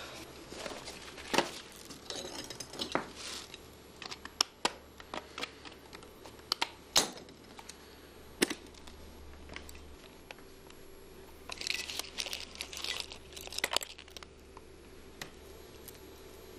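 Sharp clicks and light taps of a small wooden box being handled and worked open on a lap, with a spell of rustling from about twelve to fourteen seconds in.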